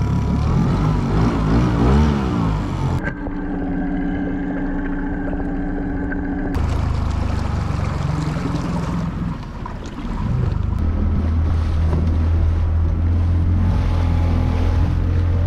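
Honda four-stroke outboard motor driving a small boat, its engine note rising and falling in the first few seconds and then settling into a steady drone at speed, with water rushing past the hull and wind on the microphone.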